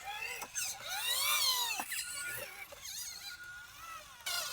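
Small electric motor and gearbox of an RC model vehicle whining, repeatedly rising and falling in pitch as it is driven.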